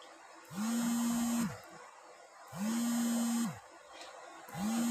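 A small electric motor buzzing in even pulses, about one second on and one second off, three times. Each pulse slides up in pitch as it starts and down as it stops.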